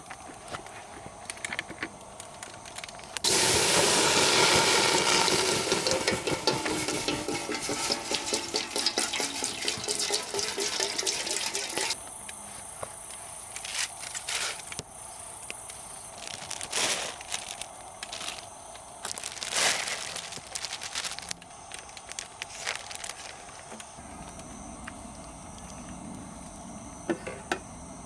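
Water being poured into a pot for about nine seconds, followed by a few knocks and clinks of cooking gear.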